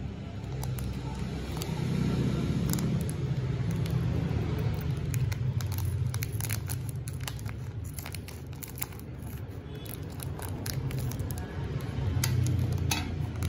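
Scissors cutting through a plastic biscuit wrapper. The crinkling wrapper gives many short, sharp crackles and snips over about ten seconds. A steady low rumble runs underneath.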